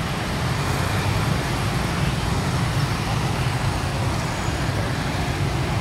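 Steady hum of dense motorbike-heavy traffic, with some cars and a bus, inching along in a rush-hour jam.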